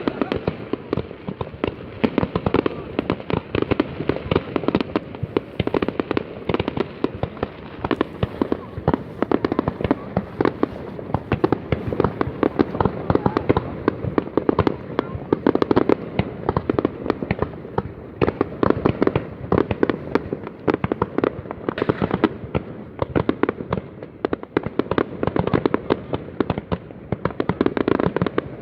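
Fireworks display: a dense, unbroken run of sharp bangs and crackles from many bursts overlapping.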